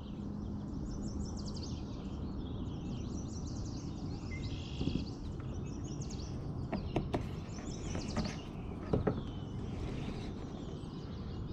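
Several birds chirping and singing over a steady low rumble of outdoor background noise, with a few sharp knocks in the second half.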